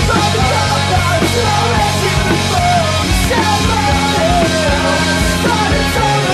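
A rock band's studio recording: drums, bass and guitars play steadily, with a lead melody that bends in pitch above them.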